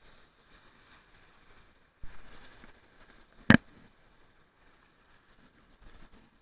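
Faint wash of surf with a short rush of water noise about two seconds in, then a single sharp knock about a second and a half later.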